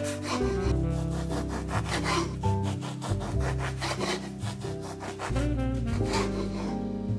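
Bread knife sawing through a loaf of milk bread, repeated back-and-forth rasping strokes through the crust and crumb, over background music.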